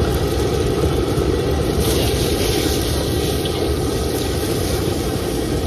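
A gas wok burner running with a steady rush, and a brighter hiss joining about two seconds in.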